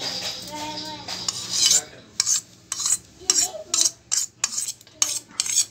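A metal spoon scraping and knocking yogurt out of a stainless steel bowl, in a string of short strokes about two a second.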